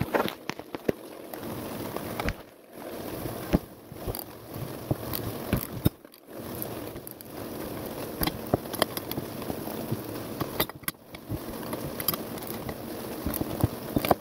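Hand tools working the mounting bolt of a replacement rear shock absorber: scattered metallic clicks and scrapes as the bolt is tightened, over a steady hiss of rain. The sound cuts out briefly several times.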